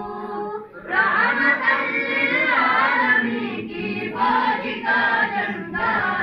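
Devotional chanting through the mosque's loudspeakers: long, melodic sung phrases with short breaks between them, about a second in and again near four and six seconds.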